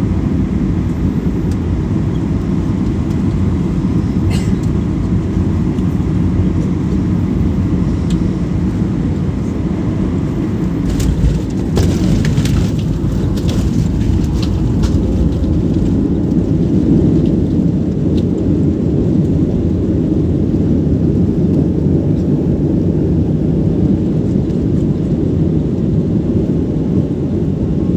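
Airliner landing: a loud, steady low rumble, with a few short clatters about eleven to fifteen seconds in.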